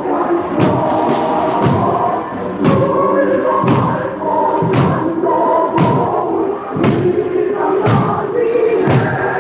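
Several Korean buk barrel drums struck together, about one beat a second, under a group of voices singing a march tune.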